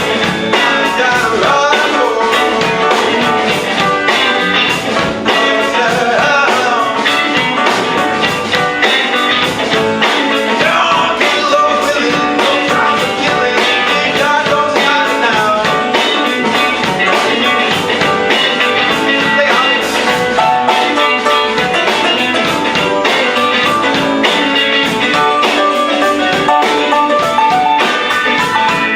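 Live band of electric guitar, keys, bass, drums, tenor sax and trombones playing a rock-blues song, with a steady drum beat throughout.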